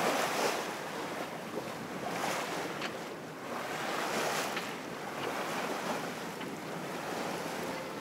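Sea surf washing, swelling and easing about every two seconds.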